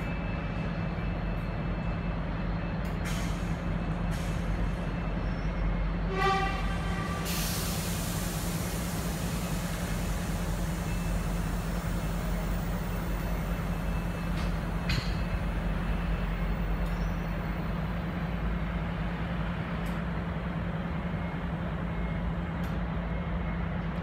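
Steady low rumble of diesel trains at a station platform. About six seconds in there is a short high beep, then a burst of air hissing that fades away over a few seconds, like air brakes releasing.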